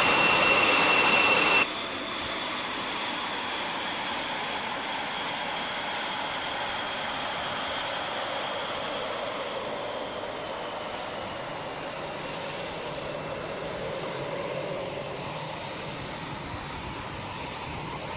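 LCA Tejas fighter's jet engine running steadily: an even rushing noise with faint high whining tones. A louder burst of noise with a steady high tone in the first second and a half cuts off abruptly.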